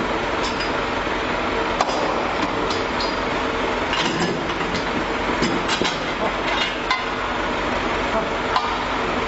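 A steady mechanical roar with a faint hum, broken by scattered sharp clinks and knocks.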